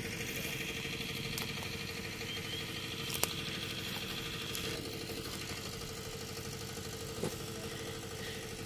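An engine running steadily, a constant low hum, with a few light clicks.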